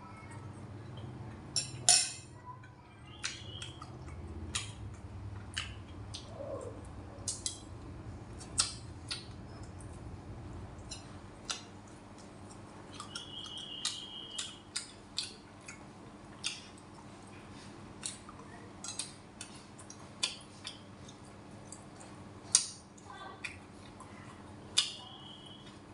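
Spoon and chopsticks clinking against ceramic bowls and plates while eating, in scattered sharp clinks, the loudest about 2 s in and near the end. Three brief high-pitched chirps come in between.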